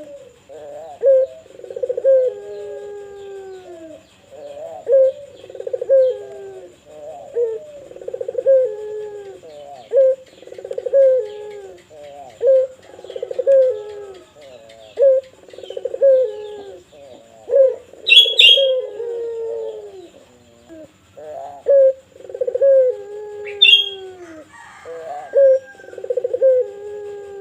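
Puter dove of the pelung type cooing without pause in a long, steady run of rolling coos, about one phrase a second, many ending in a falling note. Twice a brief, sharp, high-pitched chirp cuts in, louder than the coos.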